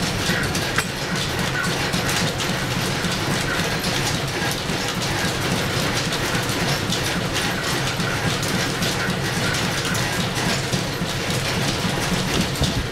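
Steam-driven overhead line shafting turning, its flat belts running over cast-iron pulleys: a steady mechanical clatter of many fine rapid clicks over a constant low rumble.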